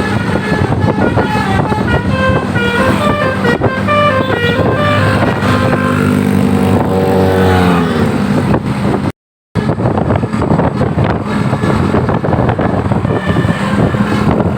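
A tour bus's 'telolet basuri' multi-tone musical horn playing a quick tune of short stepped notes, then a longer note sliding down in pitch about six seconds in. After a brief dropout, there is a steady rushing noise with faint horn notes near the end.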